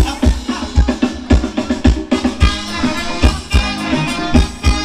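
Thai ramwong dance band music played over loudspeakers, with a steady kick-drum beat about twice a second under the melody.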